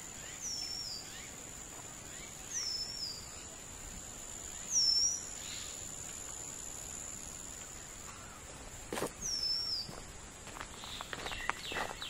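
Jungle ambience: a steady high-pitched insect drone, with a bird repeating a short high call about every two seconds. Near the end, footsteps on a gravel path start up.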